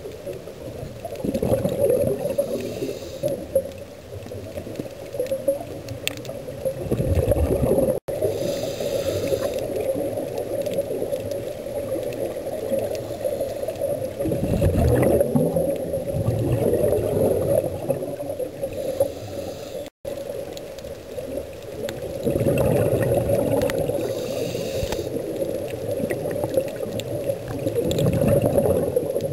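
Scuba breathing heard underwater: a regulator hisses on each inhale, about every six seconds, and exhaled bubbles rush and gurgle in between, over a steady drone. The sound drops out briefly twice.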